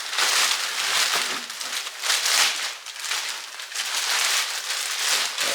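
Packaging crinkling and rustling in uneven bursts as a new item is unwrapped from its box.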